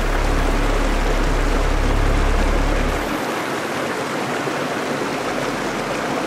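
Mountain stream rushing steadily, with a low rumble underneath that stops about three seconds in.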